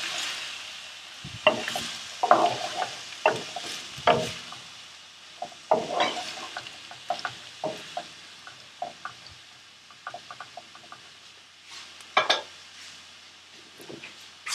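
Wooden spoon scraping and knocking in a non-stick pan as chopped onions are stirred in hot oil, over a faint sizzle. The strokes come thick at first and thin out after about nine seconds.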